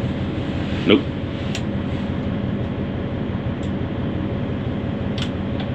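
Steady mechanical hum of running machinery, with a brief vocal sound about a second in and a few light clicks.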